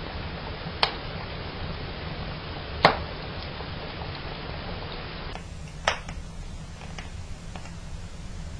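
Fire burning in a fireplace, crackling steadily with a low rumble and hiss, and three loud sharp snaps: about a second in, near three seconds and near six seconds, with fainter ticks between them.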